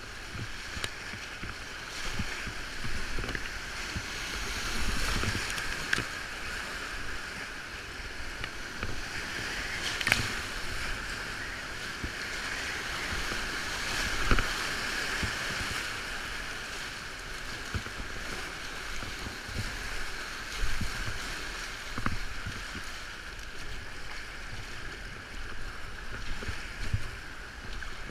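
Whitewater rapids rushing around a kayak, with scattered sharp splashes; the biggest splash comes about two-thirds of the way through.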